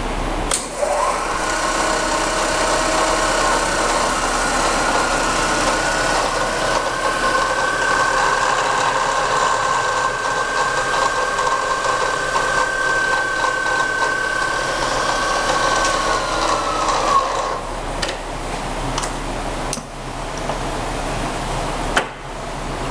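A motor-driven machine whine that spins up about a second in, holds a steady two-note pitch, then winds down and stops around three-quarters of the way through. Several sharp clicks or knocks follow it.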